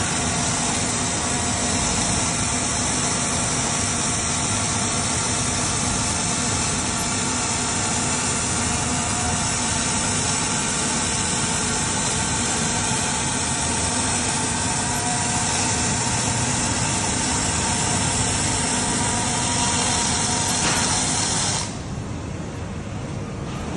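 Two Panasonic robotic MIG welding arcs running together, a steady loud hiss. The hiss cuts off suddenly near the end as the welds finish, leaving a quieter factory background.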